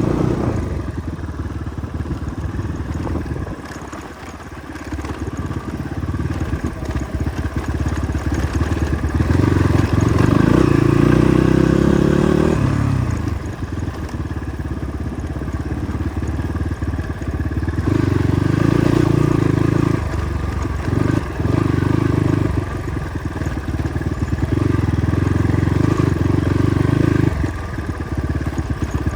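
Motorcycle engine running under load on a rough dirt track, its pitch rising as the throttle opens about nine seconds in and dropping abruptly a few seconds later, then surging again several times.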